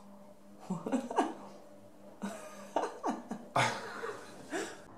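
Stifled laughter from a man and a woman, in a string of short breathy bursts that fall in pitch.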